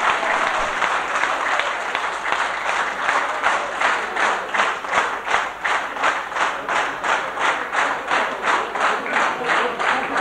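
A large audience in a meeting hall applauding; about three seconds in the clapping falls into unison, a steady rhythm of about three claps a second.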